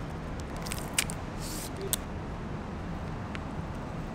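Steady low rumble of outdoor city background noise, with two sharp ticks about one and two seconds in and a short rustle between them, from small handling of the paper pepper sachet and meal box.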